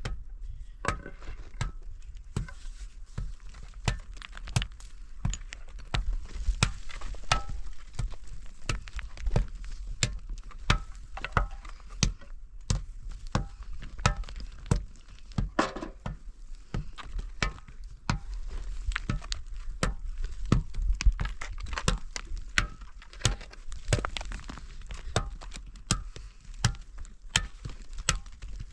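Repeated blows on wood, irregular at about one to two a second, each a sharp knock with a short ring.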